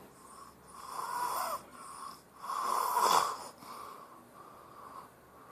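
A child snoring in his sleep: two strong snores about two seconds apart, with a softer one between them and quieter breathing after.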